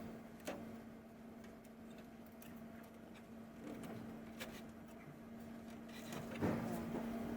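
A steady low hum with a few sharp clicks and a louder knock about six and a half seconds in, as of server hardware being handled during a drive swap.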